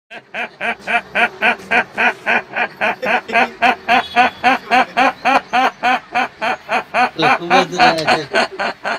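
A man imitating a duck with his voice: a long, even run of quacks, about three or four a second.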